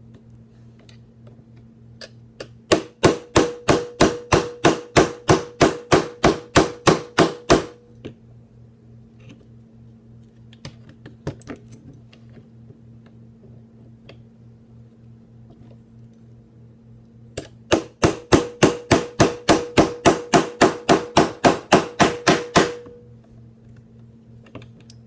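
Small hammer tapping a punch to drive a pin out of a Smith & Wesson M&P Shield pistol frame: two runs of quick, even taps, about three a second, each run lasting about five seconds, every tap with a slight metallic ring. The pin is coming out slowly.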